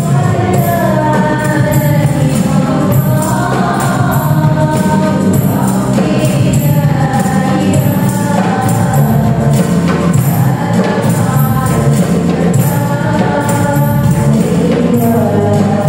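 Qasidah music: voices singing a sholawat song together, over frame drums (rebana) that beat a steady rhythm with jingling strikes.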